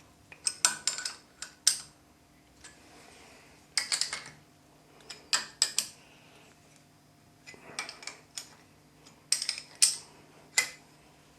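Steel spanner clinking against clamp nuts and metal parts as the bolts holding a dividing head to a milling machine table are nipped up, in short clusters of sharp clinks every second or two.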